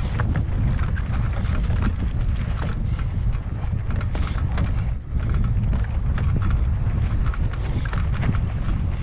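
Wind buffeting the camera microphone as a heavy rumble, over a fast, irregular clatter of a mountain bike rattling over rocky trail.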